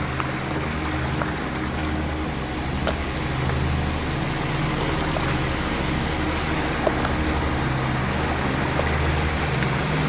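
Flowing water with a low, rapidly pulsing drone underneath that swells and fades every few seconds.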